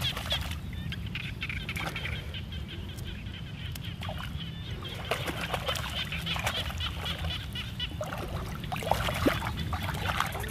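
Shallow water splashing and sloshing in irregular bursts as a person pulls plants up from the muddy bottom and wades through it.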